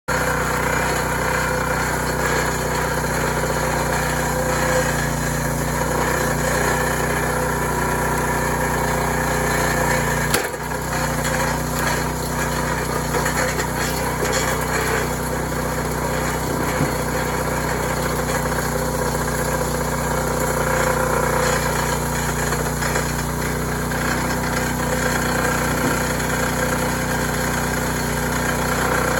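Log splitter's small gasoline engine running steadily at an even speed, with a brief dip about ten seconds in.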